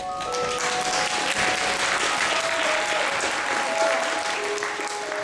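Audience applauding steadily, over a simple background melody of single held notes.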